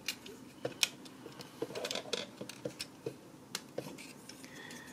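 Mastermind Creations R31 Ater Beta transforming robot figure being handled: small clicks and knocks of its parts and joints as the feet are moved into position, with two sharper clicks about a second in and about three and a half seconds in.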